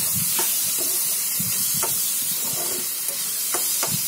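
Chopped onions with ginger-garlic-chilli paste and spices sizzling in hot oil in a kadai while a spatula stirs them, scraping and knocking against the pan a few times.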